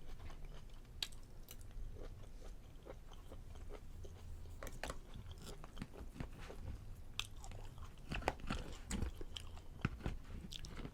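Close-miked chewing of a mouthful of prime rib with onions and mushrooms: wet mouth sounds with many small scattered clicks and smacks.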